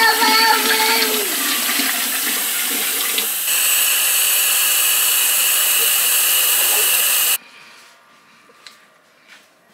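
Water poured from a plastic bowl into a large stainless steel stockpot. Then, about three and a half seconds in, a kitchen faucet runs into the plastic bowl with a louder, steady rush that stops abruptly about seven seconds in.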